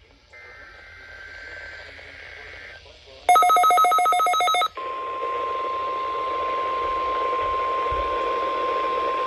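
NOAA Weather Radio receivers going off for a weekly test. About three seconds in comes a loud burst of rapid digital data pulses, the SAME alert header. Then the steady 1050 Hz warning alarm tone sounds over radio hiss.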